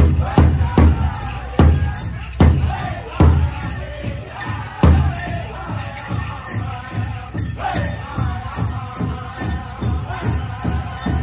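Powwow drum group playing: a big drum struck in unison with a group of singers chanting over it. Heavy beats come about one every 0.8 s for the first five seconds, then the drumming turns quicker and softer.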